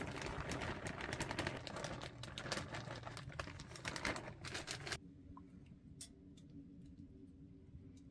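Plastic zip-top bag crinkling and rustling as cooked rice is shaken out of it onto plastic plates. It stops suddenly about five seconds in, leaving a few faint scattered clicks over a low steady hum.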